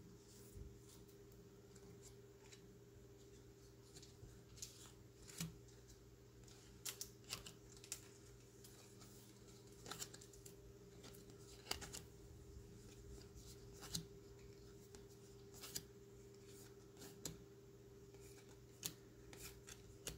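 2017 Topps Series 1 baseball cards being slid off a stack by hand and laid on a pile one at a time: faint, irregular flicks and taps of stiff glossy card, about one every second or so, over a low steady hum.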